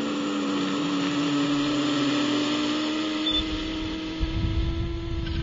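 Helicopter turbine engine whining steadily, one held tone that rises slightly in pitch over a hiss, with a low rumble coming in about three seconds in.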